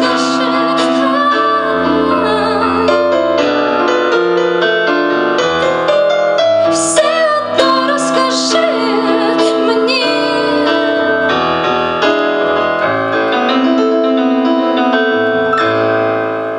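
Stage keyboard with a piano sound playing the closing instrumental bars of a song, dying away near the end.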